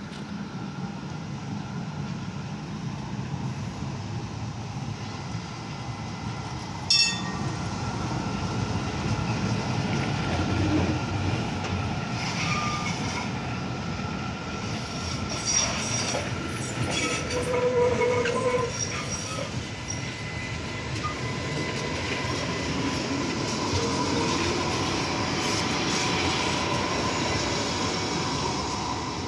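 Light-rail Stadtbahn train running past close by on curved track: a steady rumble of wheels on rail, with high wheel squeal coming and going in the middle as it takes the curve. A short, sharp ringing tone sounds once about seven seconds in.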